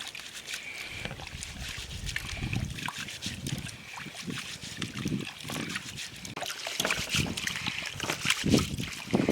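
Water sloshing and splashing in a container, with scattered small clicks and knocks, loudest near the end.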